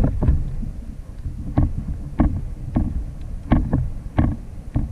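A series of sharp knocks on a plastic fishing kayak at sea, about eight of them coming irregularly, over a steady low rumble of wind on the microphone.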